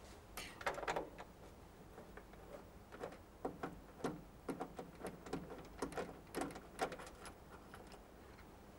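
Irregular metallic clicks and light knocks of a hand nut driver unscrewing the hex nuts that hold the spoiler to the inside sheet metal of a car tailgate. They come in an uneven run and stop about seven seconds in.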